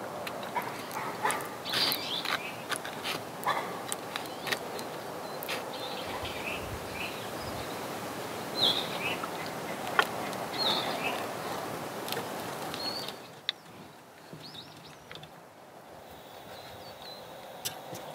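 Small birds chirping now and then over a steady outdoor hiss, with scattered light clicks and clinks from a fork and a metal hot sandwich maker being handled. The hiss drops away abruptly about two-thirds of the way through.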